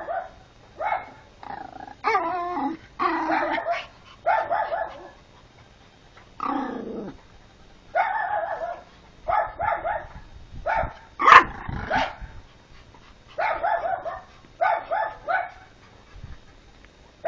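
Small Pomapoo dog barking at a praying mantis in short, high yaps, often two or three in quick succession with pauses between. About six and a half seconds in there is one lower growl that falls in pitch.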